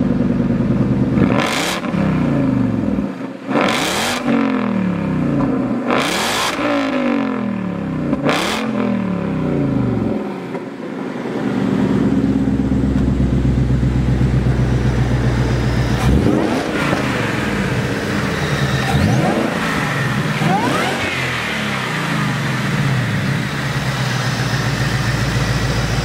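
Supercharged 5.0 L V8 of a 2018 Roush JackHammer Mustang, revved hard four times in the first nine seconds, each rev rising and then dropping back. It then settles into a steady idle, with a few lighter blips of the throttle later on.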